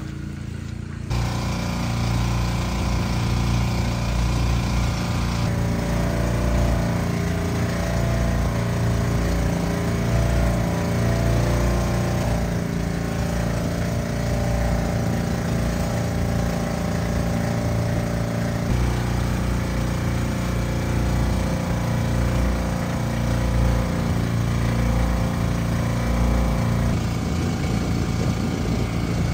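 A motor engine running steadily with a low, even drone. The sound changes abruptly at a few points, as if several clips were joined.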